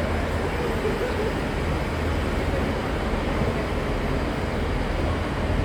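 Train running at a station: a steady low rumble and hum with an even hiss over it.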